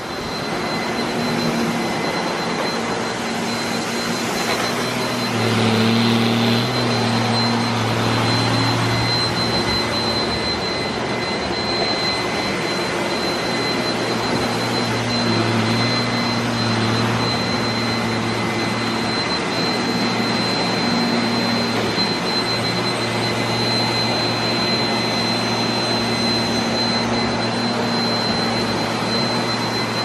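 Several robot vacuum cleaners, including iRobot Roombas, running at once on carpet: a steady combined whir of suction fans and brushes, with a constant high-pitched whine over it and a low hum that swells and fades as the robots move about.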